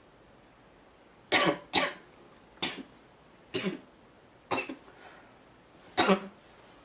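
A sick woman coughing six times, each cough short and sharp. The first two come close together, then four more follow about a second apart.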